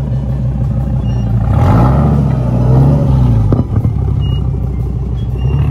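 A car engine idling with a steady low pulse, revved once about one and a half seconds in, its pitch rising and then falling back to idle about two seconds later.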